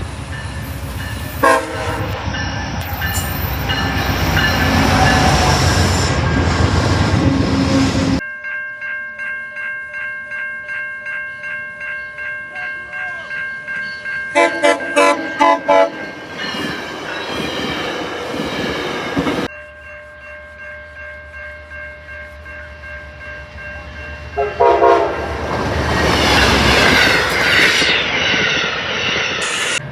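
Locomotive air horns in several recordings joined by abrupt cuts. A loud passing train sounds its horn, then a steady horn chord of several notes is broken about halfway by a quick run of about five short blasts. Near the end come a couple of short blasts and another loud passing train.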